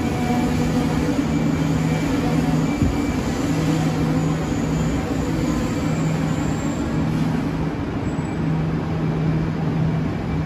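A passenger train of green YZ25G coaches rolls slowly into the station platform and eases toward a stop. It makes a steady rumble and hum, with a low tone that keeps cutting in and out.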